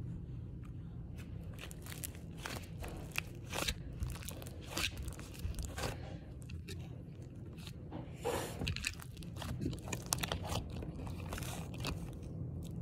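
Pink slime being stretched, squeezed and poked by hand, giving irregular sticky clicks, pops and crackles.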